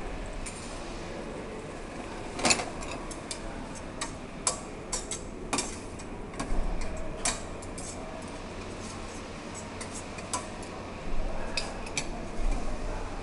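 Metal cutlery and serving utensils clinking against a stainless steel frying pan, a steel bowl and china plates: scattered single clinks, the loudest about two and a half seconds in, with a cluster in the middle and a few more near the end.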